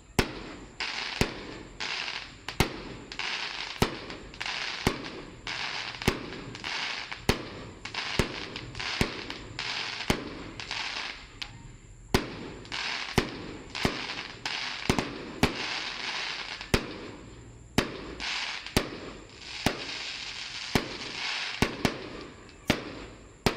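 Aerial fireworks bursting in quick succession, about one to two sharp bangs a second, each followed by a crackling hiss, with two short lulls partway through.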